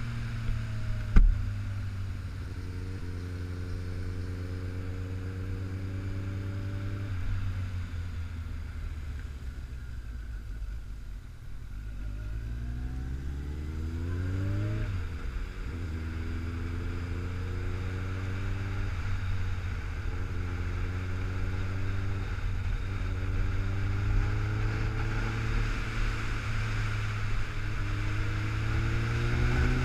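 Kawasaki ZX-14 inline-four engine heard from the rider's seat while riding. The pitch climbs and falls with the throttle and drops sharply at the gear changes, about seven and fifteen seconds in, over steady wind noise. A single sharp knock about a second in is the loudest sound.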